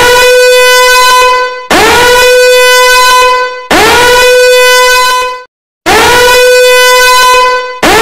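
Danger alarm horn sounding in repeated blasts about every two seconds. Each blast swoops quickly up to a steady tone, holds, then fades, with a brief silent gap before the blast about six seconds in.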